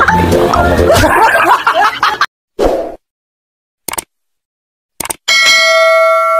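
Music stops abruptly about two seconds in. Then come a short swoosh, two mouse clicks and a bright bell ding that rings on: the sound effects of a subscribe-button and notification-bell animation.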